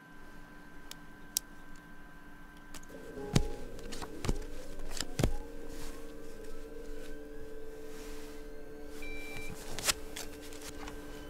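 Electronic hum of lab equipment made of several steady tones. A denser layer of held tones joins it about three seconds in. A few sharp clicks sound, and a short electronic beep comes about nine seconds in.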